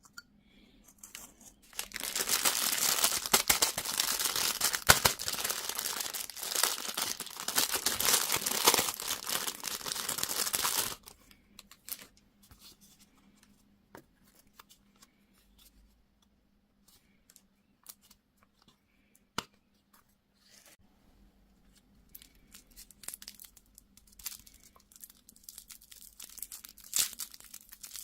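Candy wrapper crinkling and tearing as it is unwrapped, a dense stretch of about nine seconds, then scattered small clicks and rustles, with crinkling starting again near the end.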